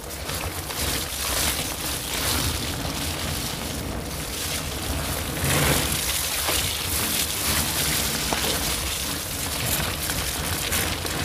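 Wind buffeting the microphone, with tyre and trail rumble, while riding along a wet forest trail; the rushing swells and eases as the speed changes.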